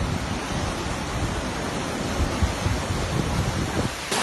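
A steady rushing storm noise with wind gusting against the microphone, coming and going as an uneven low rumble; a cut near the end switches to a brighter sound.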